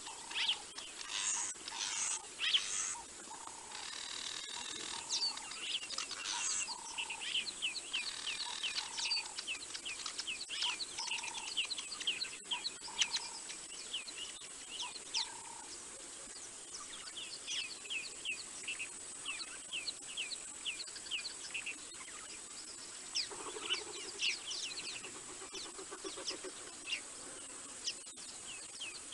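Wild birds chirping and calling: many short, quick falling chirps repeating throughout, with a few lower notes in the first half and a lower call about two-thirds through. A steady thin high-pitched whine runs underneath.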